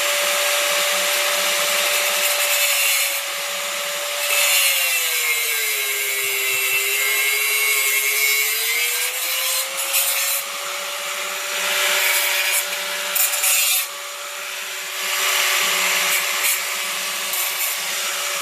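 Angle grinder running and cutting through a steel bolt to trim it to length, a steady motor whine over a rough hiss of grinding. The whine drops in pitch as the disc bites, most clearly about five to nine seconds in, then recovers.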